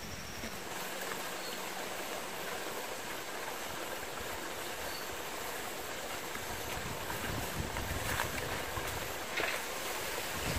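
Steady rushing outdoor noise, with footsteps and tall grass brushing past a few times, most clearly near the end.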